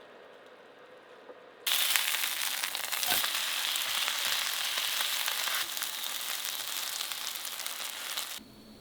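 Food sizzling in a hot frying pan. It starts suddenly about two seconds in and cuts off abruptly near the end.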